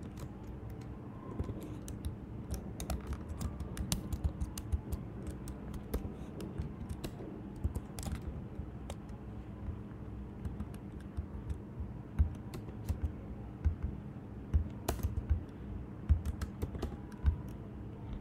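Typing on a computer keyboard: irregular key clicks in short quick runs, over a faint steady hum.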